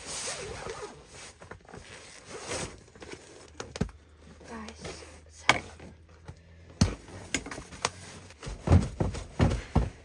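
A rolled-up sleeping pad being unrolled onto a camping cot, fabric rustling as it is spread and smoothed flat, with a few sharp knocks and thumps as it is handled, several close together near the end.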